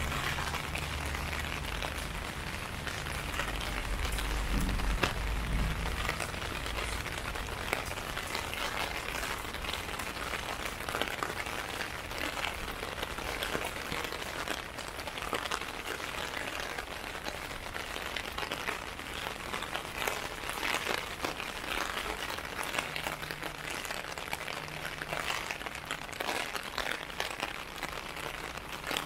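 Steady rain falling on a clear plastic umbrella held overhead: a dense, even spatter of individual drop hits. A low rumble sits under it for the first few seconds.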